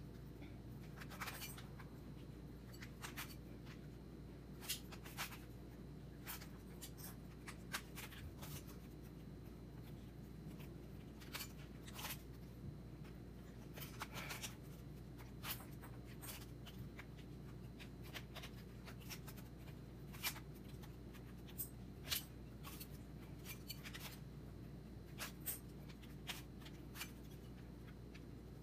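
Rubik's Cube layers being twisted by hand: irregular quiet plastic clicks and scrapes, a few sharper than the rest, over a steady low hum.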